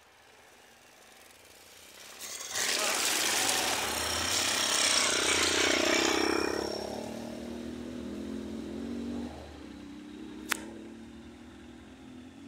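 Motorcycle passing close by on a muddy forest road: its engine grows loud about two seconds in, peaks and fades after a few seconds, then its pitch rises briefly as it pulls away. A loaded log truck's engine runs low behind it, and there is a single sharp click near the end.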